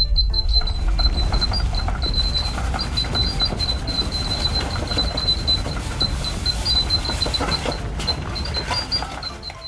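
A homemade earthquake alarm's buzzer is sounding a high-pitched tone in rapid, uneven stutters, set off by sloshing water. A loud rumbling, rustling noise runs underneath it.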